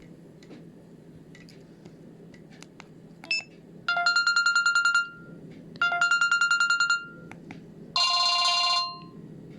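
Samsung GT-E1200 mobile phone playing short ringtone previews through its small speaker: two bursts of about a second each of a fast trilling electronic beep, then about a second of a different ringtone near the end, with light clicks in between.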